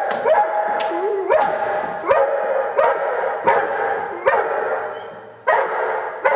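Large dog barking aggressively from inside a car, a bark about every three-quarters of a second, with a short break about five seconds in before the barking resumes.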